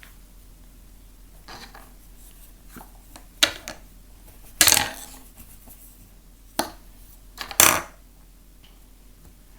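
Plastic Play-Doh tools knocking and clattering on a tabletop while dough is pressed flat: about six separate sharp knocks, the loudest about halfway and near three quarters of the way through.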